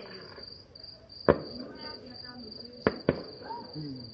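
Crickets chirping steadily, with sharp bangs of distant Diwali firecrackers: one loud crack about a second in and two more close together near the end.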